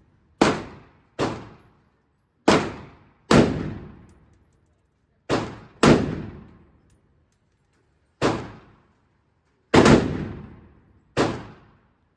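Gunshots at a shooting range: about ten sharp reports at uneven intervals, some in quick pairs, each followed by a ringing echo that dies away.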